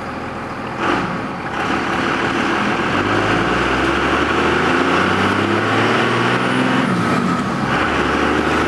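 Cab interior sound of a 1998.5–2002 Dodge Ram's 5.9 L Cummins turbo-diesel pulling away from a stop and accelerating: the engine note climbs as the truck gathers speed, with a brief drop about seven seconds in, like a gear change, over road and wind noise.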